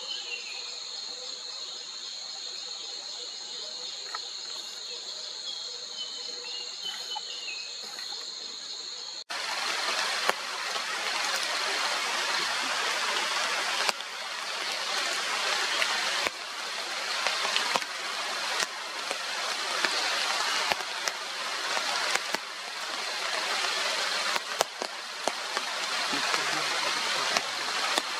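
Steady high-pitched insect chorus, then, after a sudden cut about nine seconds in, heavy rainforest rain falling on foliage, with many close drops ticking through the hiss.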